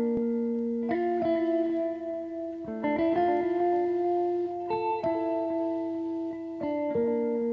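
Background music: a slow melody of ringing, sustained notes that change every second or two.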